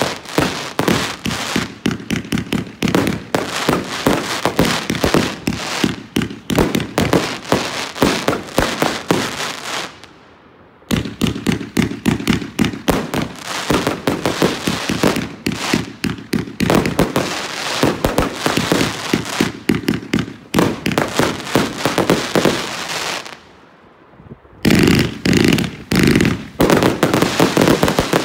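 Noi-Z Evolution 30 mm fireworks compound firing shot after shot in quick succession, a dense string of launches and bursts. The firing pauses briefly about ten seconds in and again about twenty-three seconds in, then a last rapid run of shots stops near the end.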